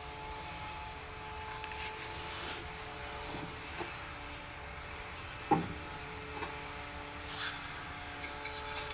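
Handling noise: a part rubbed and scraped against the car's sheet-metal body by hand, with one sharp knock about five and a half seconds in. A faint steady hum runs underneath.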